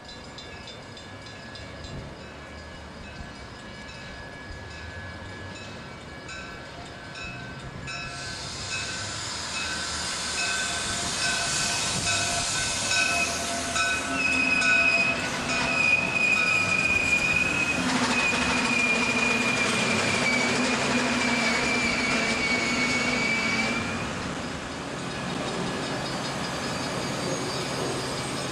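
Metra commuter train of bilevel gallery cars rolling along the track, its rumble growing steadily louder as it nears. About halfway through, a high, slightly wavering squeal from the train sets in and lasts about ten seconds before it stops and the sound eases off.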